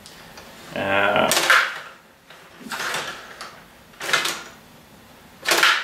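Table hockey game's player rods being pushed, pulled and turned to play a pass. A short rattling buzz comes about a second in, followed by four short scraping rasps about a second and a half apart.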